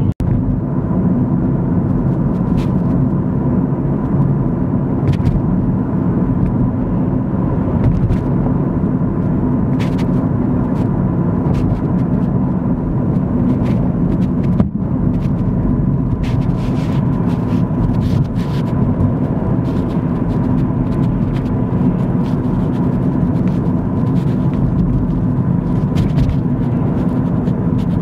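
Steady road noise heard from inside a moving car: a constant low engine and tyre rumble.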